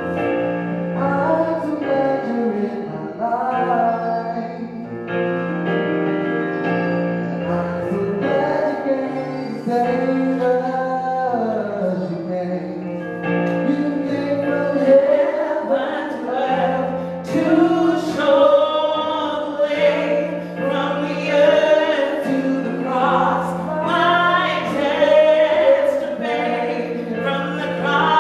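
Worship song: female and male voices singing over sustained instrumental chords and bass notes.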